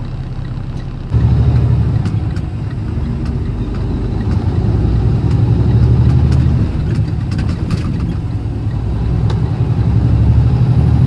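Semi-truck diesel engine pulling the rig along the road, heard from inside the cab as a steady low drone, louder from about a second in.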